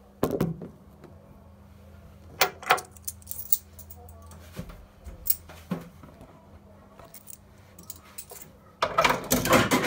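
Coin-operated kiddie ride train: scattered sharp clicks and metallic jangles over a low steady hum, then the ride's audio starting loudly near the end.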